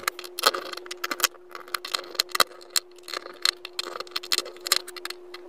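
Quick, irregular small clicks and ticks of a precision screwdriver working the tiny screws out of a Redmi phone's plastic mid-frame, over a faint steady hum.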